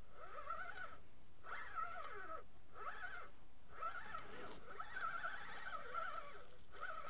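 Animal calls: a run of wavering, pitched cries, each about half a second to a second long, repeated with short gaps.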